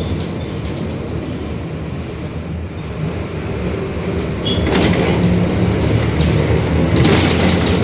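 Mercedes-Benz OF-1721 Bluetec 5 bus running, its six-cylinder diesel engine droning low with the differential growling. The sound grows louder from about three seconds in, with bursts of clattering rattles about five seconds in and again near the end.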